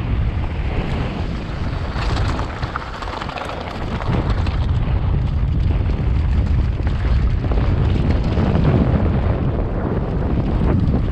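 Wind buffeting a helmet-mounted camera's microphone as a mountain bike descends a dirt and gravel trail at speed, with tyre rumble and the bike rattling over stones. It eases briefly about three seconds in.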